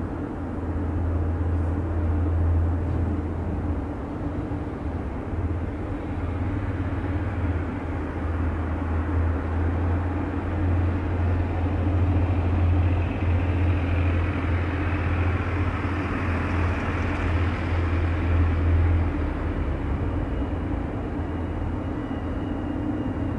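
Steady low hum and rumble of an Airbus A319 airliner being pushed back by a tow tug, with a faint higher whine building up about halfway through.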